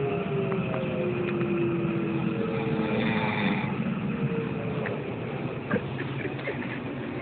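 Running noise of a train, heard from inside the carriage: a steady rumble with a whine that falls slowly in pitch over the first few seconds, and a few light knocks later on.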